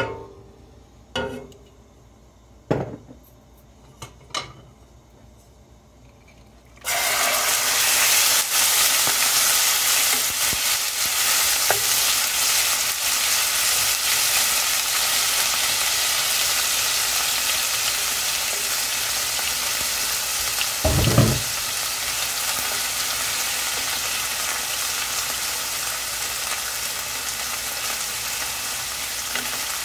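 Sliced chicken breast dropped into hot oil in a nonstick pan on high heat: after a few light knocks, loud sizzling starts suddenly about seven seconds in and carries on steadily while the pieces are stirred with a wooden spatula. There is one short low thump about two-thirds of the way through.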